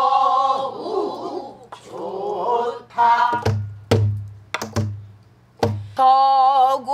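A woman singing pansori in long, wavering held tones, accompanying herself on a buk barrel drum. Around the middle the voice drops out for a few low drum thumps and sharp stick clicks, then the singing resumes.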